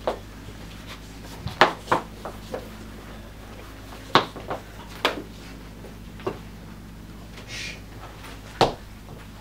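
Scattered sharp knocks and taps, about seven in all and unevenly spaced, with a brief soft rustle near the end, from a performer moving on a wooden stage floor and handling clothing. A steady low hum runs underneath.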